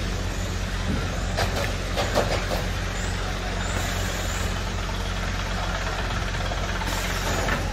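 Steady outdoor amusement-park background noise with a low rumble, faint clatter and voices about two seconds in, and brief hisses near the middle and near the end.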